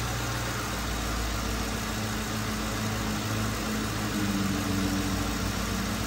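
2007 Lincoln Town Car's 4.6-litre V8 idling steadily, running so the power steering pump can circulate freshly added fluid and bleed air out of the system.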